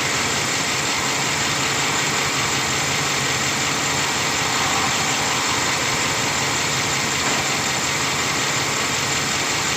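2007 GMC Yukon V8 engine idling steadily while misfiring; live scan data shows misfires on cylinders 2 and 7, the cause of the rough, shaking idle.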